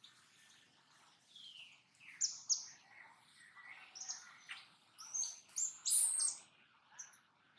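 Capuchin monkey giving a string of short, high-pitched, falling chirps and squeaks, coming thicker and louder about two thirds of the way through.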